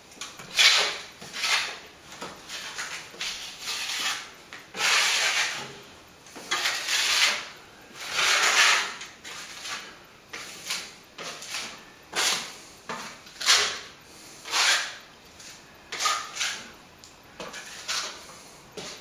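Plastering trowel scraping wet plaster across a wall in a run of irregular strokes, roughly one a second, each under a second long, as a coat of white set finish plaster is spread over a filled wall chase.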